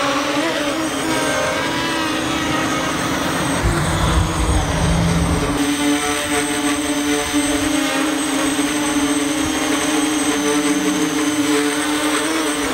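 Vusion Rise 250 mm racing quadcopter's motors and propellers buzzing as it lifts off and flies. The pitch wavers with the throttle at first, then holds steady from about halfway on.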